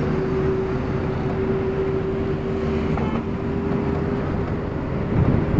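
Steady engine and road noise of a moving car heard from inside, with a constant droning tone over an even rumble.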